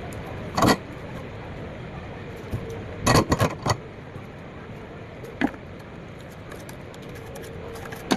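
Several short, sharp clinks and knocks over a steady background hum: one about a second in, a quick run of four around three seconds, and single ones later.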